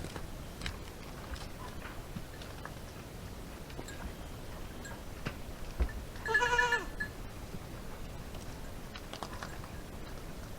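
A goat bleats once, a short call lasting under a second about six seconds in, with faint scattered clicks and taps around it.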